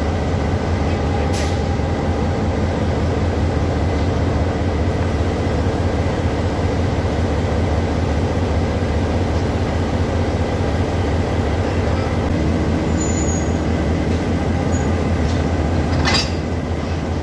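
Standing locomotive idling, a steady low drone with a hum, while its coupling and brake connection to the coach are being checked. Two brief sharp sounds break through, about a second in and again near the end.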